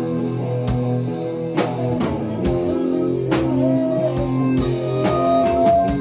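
A live band playing an instrumental passage of a blues-rock jam: guitar chords over a steady drum-kit beat, with strong hits a little under a second apart.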